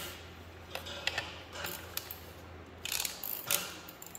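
Quarter-inch ratchet clicking in short strokes as it tightens a piston ring compressor around a John Deere A piston, drawing the rings in. The clicks are sparse at first and come quicker and louder from about three seconds in.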